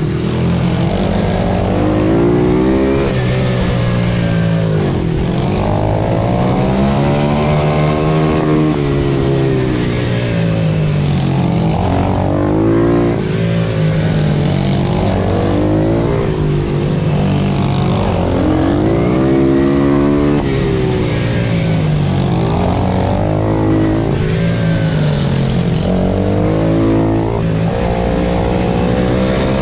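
Pit bike engine heard onboard at race pace, revving up hard on each short straight and dropping off into each corner, again and again, over a steady low wind rush.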